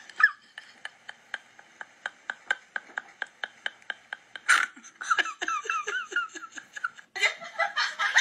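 Dubbed comedy laughter track: high-pitched giggling comes in short runs, with an even ticking of about four clicks a second between them, and a sharp burst about four and a half seconds in. Louder music comes in near the end.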